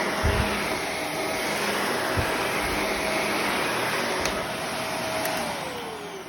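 Shark Navigator Lift-Away Professional upright vacuum running with a steady roar while it is pushed across the floor, with a few low thumps. About five and a half seconds in, its motor note falls away as it is switched off and winds down.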